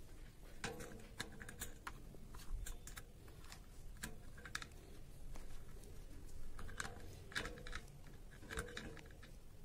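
Irregular metal clicks and light scrapes of combination pliers gripping and turning the nut on a ceiling fan's downrod bolt as it is tightened.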